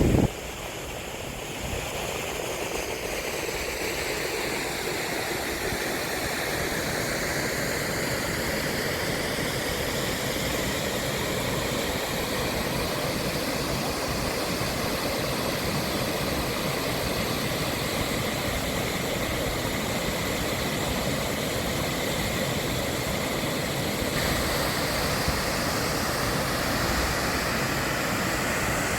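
Waterfall's falling water, a steady rushing noise that stays even throughout.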